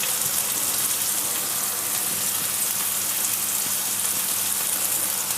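Chopped onion, tomato and green chilli frying in hot mustard oil in a kadai, with a steady, even sizzle.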